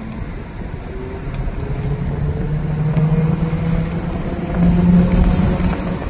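City bus running, heard from inside the cabin: a steady drone with road noise that rises slowly in pitch and grows louder as the bus gathers speed, loudest about five seconds in.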